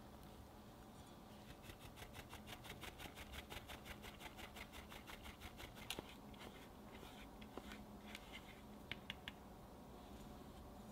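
Fine-mesh sieve tapped to sift cocoa powder over chocolate: a quick even run of faint light taps, about six a second, for several seconds. A few sharp clicks follow from a spatula against a glass bowl.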